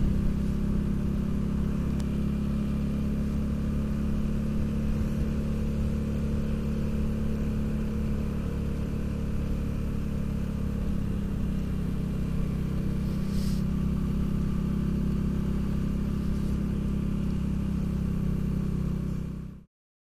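Motorcycle engine running steadily at cruising speed, heard from the rider's seat. It cuts off suddenly near the end.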